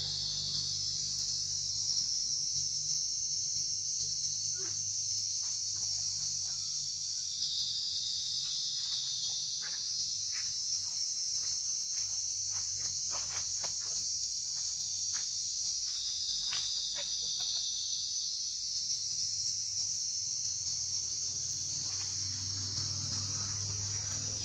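Steady high-pitched insect chorus buzzing without a break, with a few short faint chirps scattered through the middle.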